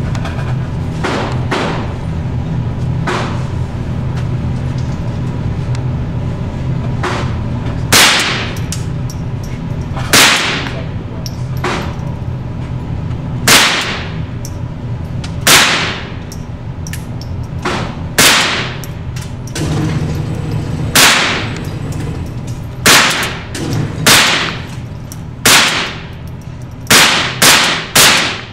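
Gunshots: about a dozen loud single shots a few seconds apart, coming faster near the end, each with a short ringing tail, with fainter shots from further off in the first several seconds.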